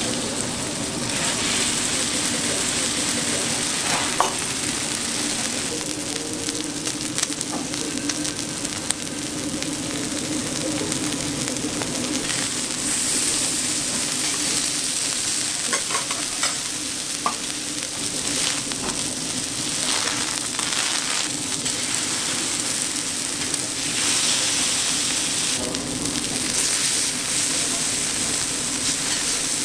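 Cubes of marbled beef sizzling steadily on a hot steel teppanyaki griddle, with a few light clicks of the metal spatula and fork against the plate.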